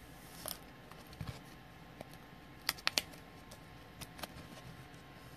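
Hands handling a trading card in a clear hard-plastic holder: a scatter of faint clicks and taps, with three sharp clicks in quick succession a little before halfway.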